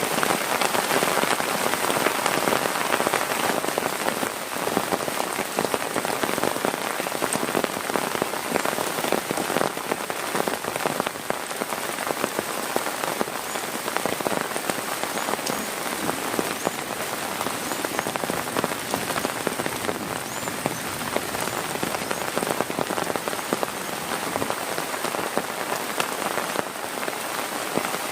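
Heavy rain falling steadily, with many individual drops ticking close by.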